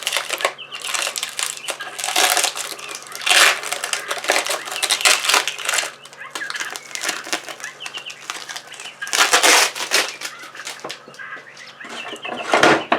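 Irregular rustling and knocking handling noises, with songbirds chirping in the background.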